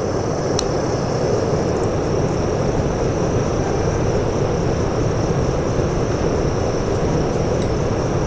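SOTO ST-330 gas single burner burning at full flame with an electric fan blowing on it: a steady rushing noise of flame and moving air. The burner has no windscreen, and the flame is buffeted by the draft.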